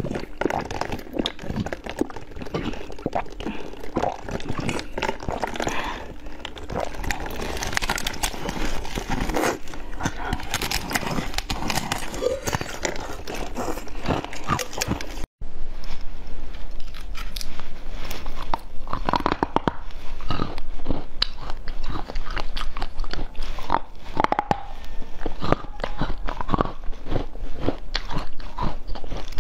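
Close-miked eating sounds: biting, crunching and chewing of a translucent blue block of food. After a sudden break about halfway, fresh strawberries are bitten and chewed.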